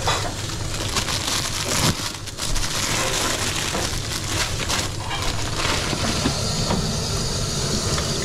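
Commercial kitchen at work: a steady rushing hiss with frequent clatter and knocks of pans and utensils.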